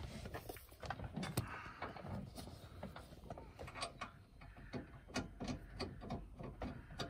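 Irregular clicks, rattles and light knocks of hands working on the metal swivel plate and fittings under a van's driver's seat.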